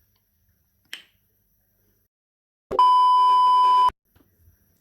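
A faint click about a second in, then a single steady electronic beep lasting just over a second that cuts off sharply.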